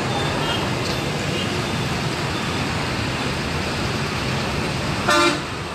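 Steady street traffic noise from a road busy with motorbikes, with one short vehicle horn toot about five seconds in.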